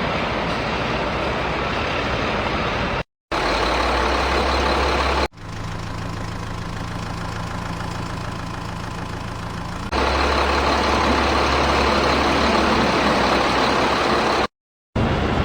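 Steady engine-like running noise in several edited segments with a low hum. It cuts off abruptly twice, about three seconds in and near the end, and changes character at each cut.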